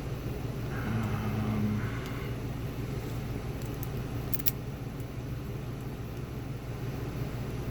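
Steady low background rumble, with a short hum about a second in and a couple of sharp metallic clicks about four and a half seconds in from the picked padlock being handled and locked back up.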